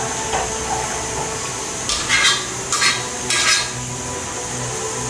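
Metal cookware scraping as pork stew is tipped from an aluminium pressure-cooker pot into a pan and worked with a wire spider strainer: three short scrapes between two and three and a half seconds in.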